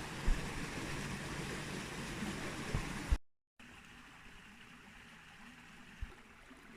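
Rushing water, a steady even hiss, with a few dull knocks in the first half. It cuts out briefly about three seconds in and returns quieter.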